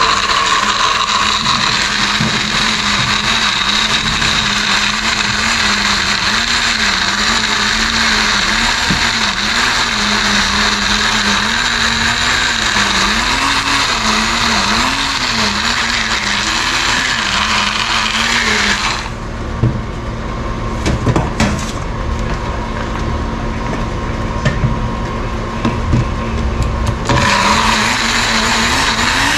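Single-serve bullet-style blender running, grinding coconut chunks with water to draw out coconut milk, its motor pitch wavering as the pieces churn. About two-thirds of the way through it stops for several seconds with a few knocks and clicks, then starts blending again near the end.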